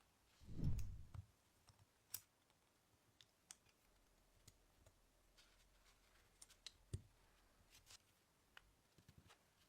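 Faint scattered clicks and light taps. A single low thump about half a second in is the loudest sound.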